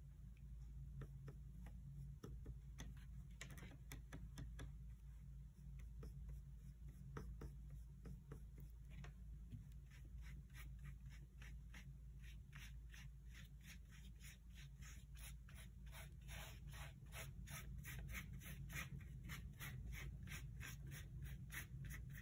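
Watercolour paintbrush rubbing and scrubbing on paper and on the paint palette in short, faint strokes. The strokes grow quicker and more regular in the second half, about three or four a second.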